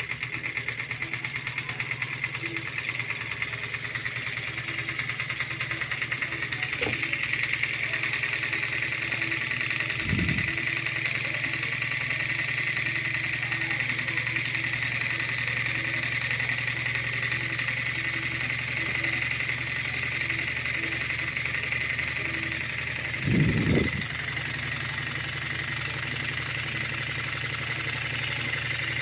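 Homemade Stirling engine running steadily, its flywheel spinning fast, with a rapid, even mechanical ticking and a steady hiss. Two brief dull thumps come through, about ten seconds in and near twenty-four seconds in.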